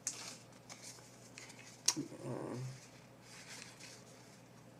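Trading cards and pack wrapper being handled, with soft papery rustles. There is a sharp click just before two seconds in, followed by a brief low voiced sound.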